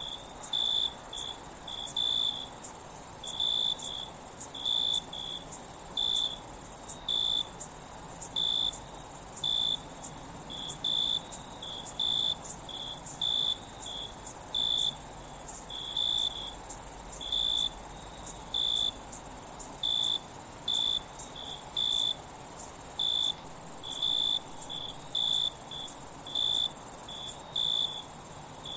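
Night chorus of crickets and other insects: a dense, steady, high-pitched trill, with a nearer cricket giving short chirps a little over once a second.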